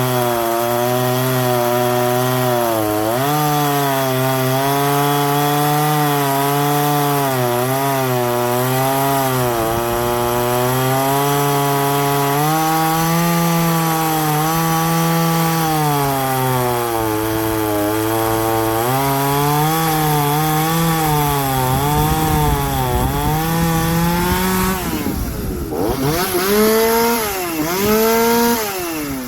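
Small two-stroke chainsaw cutting wood at full throttle, its engine note sagging and recovering again and again as the chain loads up in the cut. Near the end it comes free of the wood and revs up and down twice.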